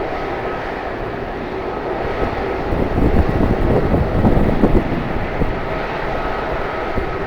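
Jet airliner engines running steadily, with irregular low rumble from strong wind buffeting the microphone; the noise swells about halfway through.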